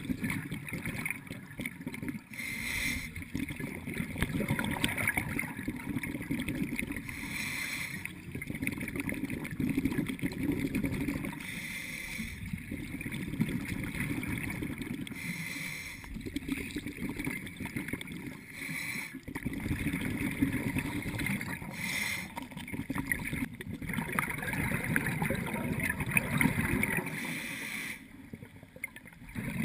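Scuba diver's regulator breathing heard underwater: a short hiss of inhalation every few seconds, each followed by a longer low rush of exhaled bubbles, about seven breaths in all.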